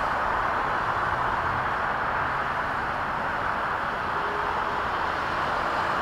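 Parrot Mambo mini quadcopter's four small propellers buzzing steadily as it hovers and flies.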